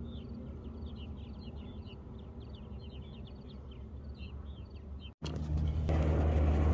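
Small birds chirping in a quick run of short high notes over a steady low rumble. About five seconds in, the sound cuts out briefly, and then a louder, steady low motor hum begins.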